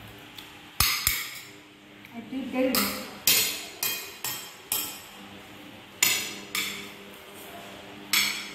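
Metal forks clinking and scraping against ceramic plates of noodles: about ten sharp clinks, each with a short ring, in an irregular run.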